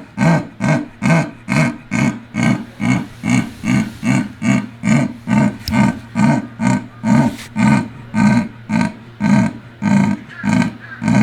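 A zoo animal giving a long, even run of rhythmic calls, about two and a half a second.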